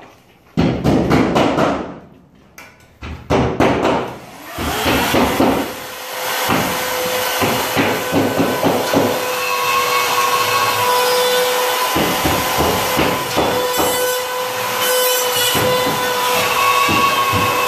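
Rhythmic rasping strokes of a hand saw cutting drywall for the first few seconds. From about four seconds in, a steady machine hiss with a constant hum carries on to the end.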